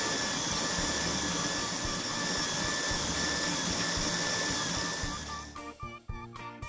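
Small bench drilling/milling machine running steadily as its twist drill bores holes in a thin aluminium disc, with a steady motor whine. Background music plays underneath, and the machine sound cuts off suddenly about a second before the end, leaving only the music.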